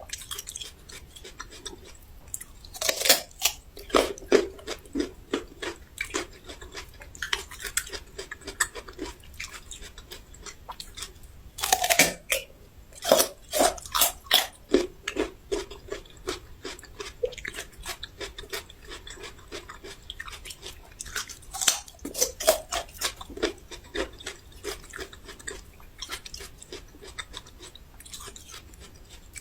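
A person biting and chewing raw ginger root close to the microphone: three bouts of loud crisp crunching, with quieter chewing between them.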